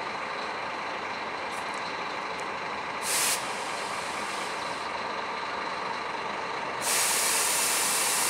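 Air hissing from the Scania K400 bus's electronically level-controlled air suspension as it adjusts ride height: a short burst about three seconds in, then a steady, louder hiss of air from about seven seconds on, over a steady background drone.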